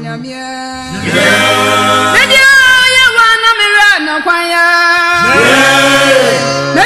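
Gospel singing in Twi: several voices sing over long held low notes, with the voices swelling upward about a second in and again about five seconds in.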